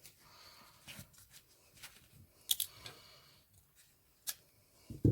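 Light rustling and small sharp clicks of satin ribbon and thread being handled while a bow is hand-stitched, with a dull bump near the end.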